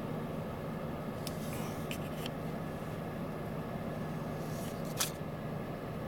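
Steady low engine drone with a held low hum, broken by a few light clicks and one sharper click about five seconds in.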